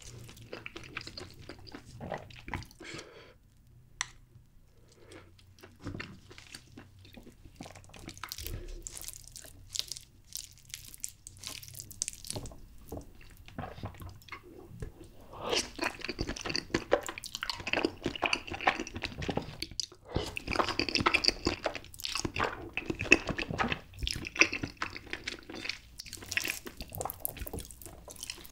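Thick nacho cheese sauce poured from a bowl onto spicy stir-fried noodles, with chopsticks clicking and wet dripping sounds. About halfway through, close-miked slurping and chewing of the cheese-coated noodles begins and gets much louder.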